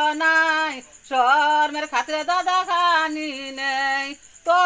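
A woman's voice singing a Bengali wedding song (biyer geet) in long, held, wavering phrases, pausing briefly about one second in and again near the end.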